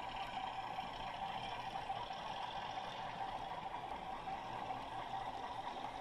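Model freight train rolling past: a steady whirr and rumble of the wagons' wheels running along the track.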